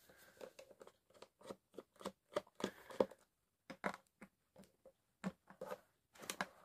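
Screwdriver turning screws out of a speaker cabinet: a run of faint, irregular small clicks and scrapes.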